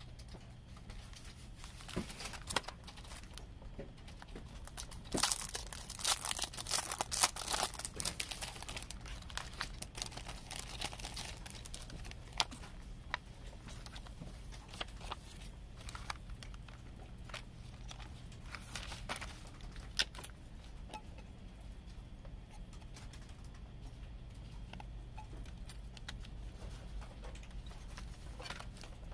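CD packaging being handled and unwrapped: plastic wrap crinkling and tearing, busiest a few seconds in, with scattered clicks and taps.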